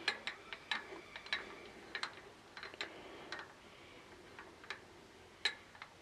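Lathe tailstock quill being wound in by its handwheel: quiet, irregular light metallic clicks, several a second at first and thinning out, with one sharper click near the end.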